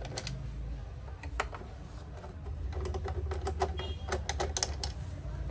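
Sharp little clicks and taps of a screwdriver working the screws in the plastic bottom plate of a Janome sewing machine. A few come early, then a quick cluster from about three to five seconds in, over a low steady hum.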